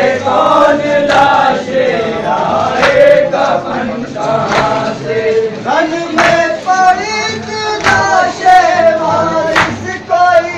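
Group of men chanting a noha lament together, with hands striking chests in unison in matam about every second and a half to two seconds.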